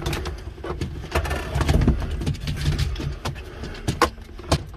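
Plastic dash trim bezel of a Daihatsu Hijet mini truck being pushed and worked into the dashboard opening: irregular clicks, knocks and rubbing of plastic on plastic.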